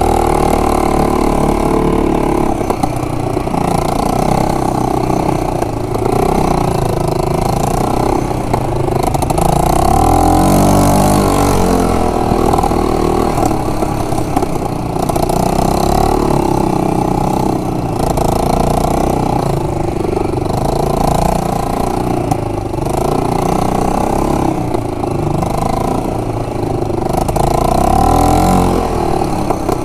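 Yamaha Grizzly 125 quad bike's small single-cylinder four-stroke engine running under way, its revs rising and falling every couple of seconds as it is ridden off-road.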